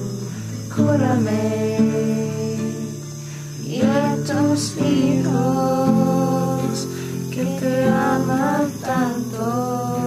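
Background music: a singing voice over plucked guitar accompaniment, the melody sliding between notes.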